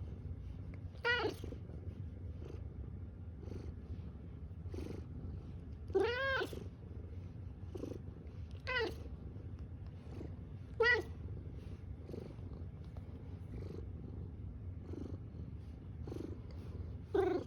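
Tuxedo cat purring steadily, with four short meows breaking in; the longest and loudest comes about six seconds in.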